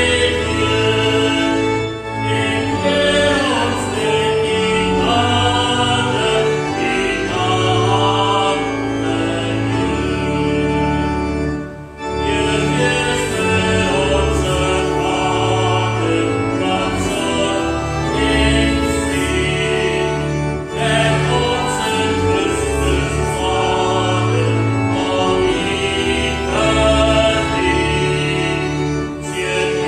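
A hymn sung by a group of voices with instrumental accompaniment, with a brief pause about twelve seconds in, between verses.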